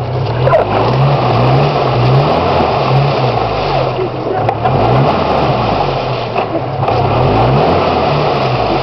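A 4x4's engine revving up and down under load as its wheels spin in deep mud, the vehicle stuck and unable to climb out.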